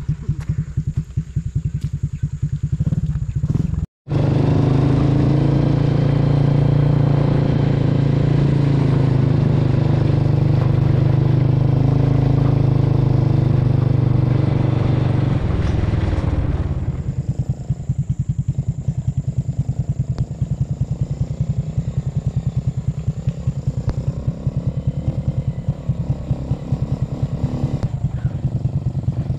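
A small engine running steadily, with a brief cut about 4 s in; it runs louder until about 16 s, then quieter.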